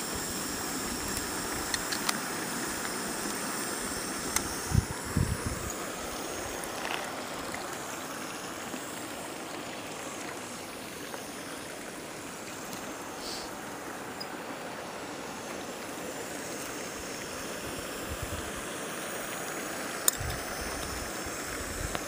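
Jetboil camping stove's gas burner running with a steady hiss as the water in its cup comes to the boil. A few light knocks come about five seconds in and again near the end.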